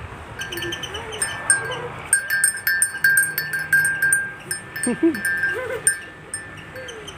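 Small neck bell on a bull's rope clinking repeatedly as the animal moves its head, with a few short low calls about five seconds in.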